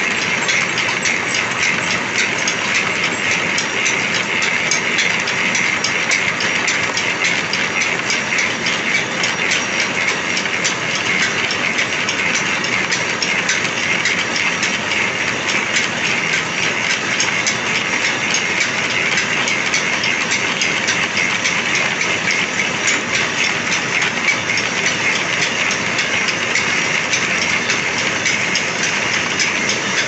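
Pillar drill running with its twist bit cutting into a toothed steel bar: a steady, loud metal-cutting noise as the bit bores through the steel.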